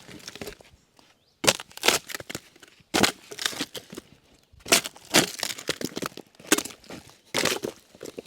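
Dry bark of a dead ponderosa pine log being pried and torn off in pieces, crackling and cracking in irregular bursts, about eight of them.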